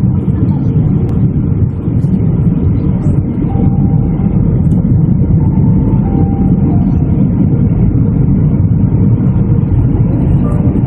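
Steady cabin noise of a jet airliner in flight, heard from a window seat over the wing: an even, deep rush of engine and airflow noise.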